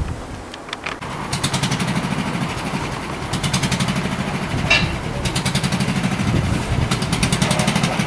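Small engine of a miniature-railway locomotive running steadily with a fast, even beat, from about a second in. A single knock near the middle.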